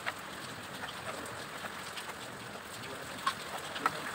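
A hand mixing wet batter in a steel bowl: soft, wet squelching under a steady hiss, with a few light clicks against the bowl.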